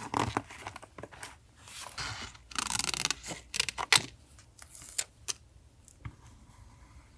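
Close-up paper-crafting sounds: paper and stickers rustling and scraping in short crisp strokes with small clicks, including a longer scraping stretch about two and a half seconds in, quieter toward the end.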